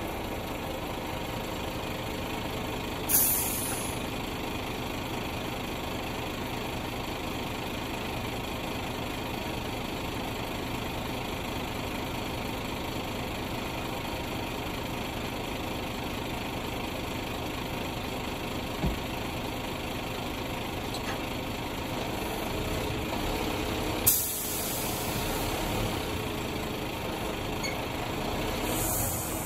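Car transporter lorry's engine idling steadily. It is broken by short bursts of hissing air about three seconds in, around twenty-four seconds and near the end, and by a single sharp knock a little before twenty seconds.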